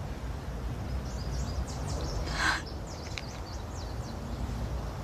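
Steady low outdoor rumble with faint, short high bird chirps. About halfway through comes one sharp, breathy sob from a crying woman.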